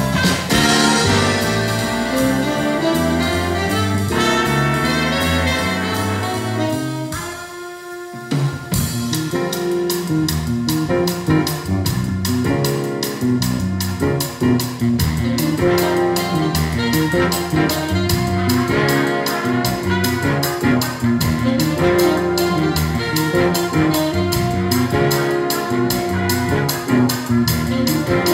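Live jazz big band playing: saxophones, trumpets and trombones over piano and drum kit. The band drops back briefly about seven seconds in, then comes back in full with a steady cymbal beat under the horns.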